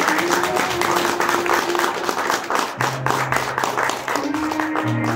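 Crowd of guests clapping and applauding, dense and continuous, with music holding long sustained notes underneath.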